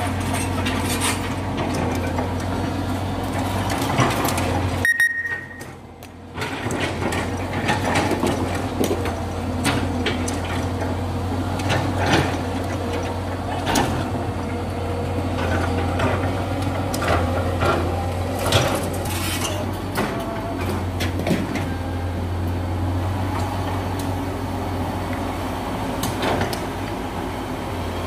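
Hydraulic excavator's diesel engine idling steadily, with scattered knocks and clinks. The sound drops out briefly about five seconds in.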